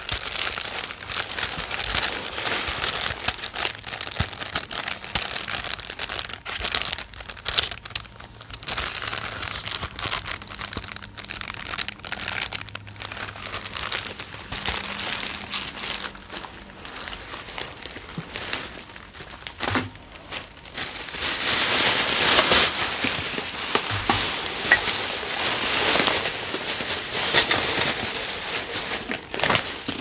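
Plastic crinkling and rustling, dense with small crackles and clicks, getting louder in the last third.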